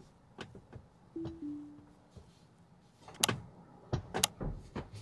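Tesla's two-note chime about a second in, stepping down in pitch, the falling pattern the car plays when FSD disengages. Several sharp clicks follow near the end.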